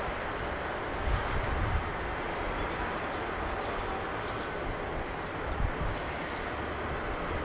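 Steady outdoor background noise with a low rumble, and a few short high chirps in the middle.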